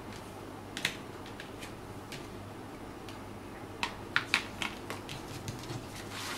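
Paper pattern pieces being handled and lifted on a paper-covered table: scattered light crackles and clicks, a cluster of sharper ones about four seconds in, and a short rustle near the end.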